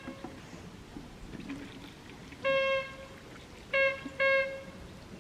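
A horn honking: one longer toot, then two short toots in quick succession, each on a single steady pitch.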